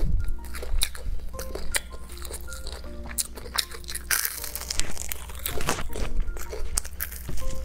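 Close-up eating sounds: a person biting and chewing food off a chili-coated grilled skewer, giving many short, sharp mouth clicks and crunches. Background music with short held notes plays underneath.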